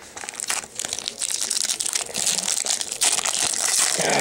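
Foil trading-card pack wrapper crinkling as it is handled and opened, a dense crackle that grows louder from about a second in.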